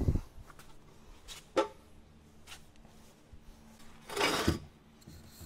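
Steel frame of a portable car lift being handled and slid into place: a heavy clunk at the start, a sharp knock about a second and a half in, and a short scrape a little after four seconds that ends in a thump.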